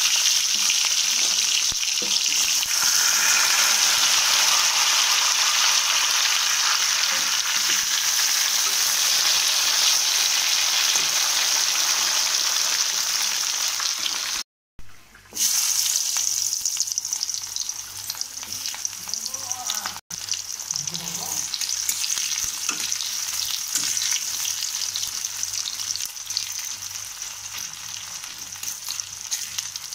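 Pieces of carp sizzling steadily as they fry in hot oil in an iron kadai, stirred with a spatula. The sound cuts out briefly about halfway, then the frying sizzle goes on a little quieter, with sliced onions in the oil near the end.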